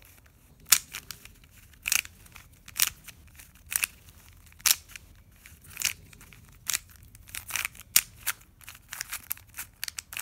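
Plastic pieces of a YJ Yulong Square-1 puzzle clicking sharply as its layers are turned, about one click a second, coming quicker near the end.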